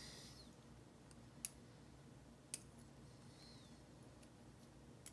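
Three faint, sharp metal clicks of tweezers working inside a lock to pull out a deeply buried spring, over near silence.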